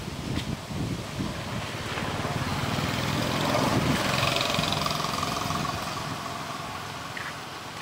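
A motor vehicle passing by on a road, its engine and tyre noise swelling to a peak about four seconds in and then fading away.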